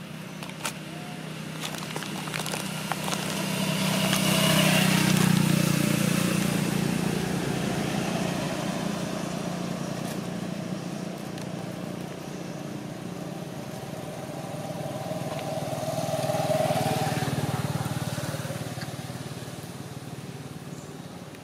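Motor vehicles passing on a nearby road: an engine hum swells to its loudest about five seconds in, fades, then swells again as a second vehicle passes around three-quarters of the way through.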